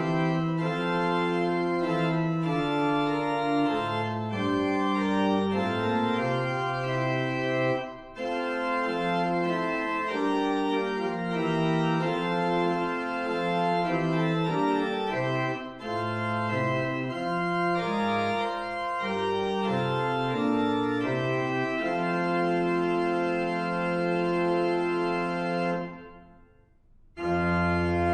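Organ playing slow, held chords in phrases, with short breaks between phrases about eight and sixteen seconds in. Near the end there is a pause of about a second before the playing starts again.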